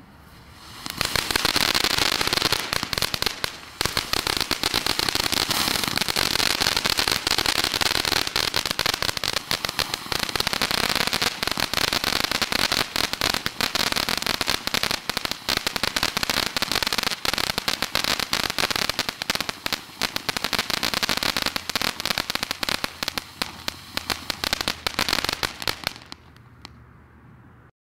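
Black Cat Neon Dragon firework fountain spraying sparks: a steady hiss thick with rapid crackling. It starts about a second in and dies away near the end.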